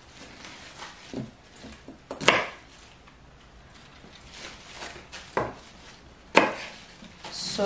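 Large kitchen knife chopping celery stalks on a wooden cutting board: a few separate, irregular sharp chops, the loudest about two seconds in and again about six seconds in.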